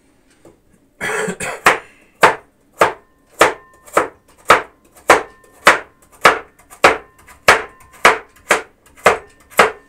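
Kitchen knife chopping a carrot on a wooden cutting board: a steady run of sharp knocks of the blade on the board, a little under two a second, starting about a second in.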